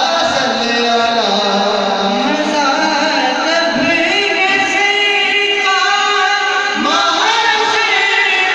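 Two men singing a naat, an Urdu devotional song, into microphones over a sound system, in long held melodic lines.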